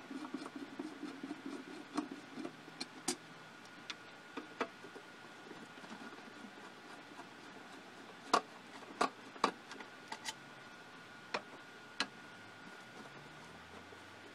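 Screwdriver working the screws of a show laser's metal case: a rough scraping for the first few seconds, then a scatter of sharp clicks and taps.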